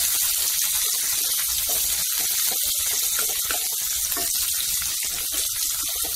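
Onion and capsicum pieces sizzling steadily in hot oil in a kadhai as they are stir-fried with a wooden spatula to soften them.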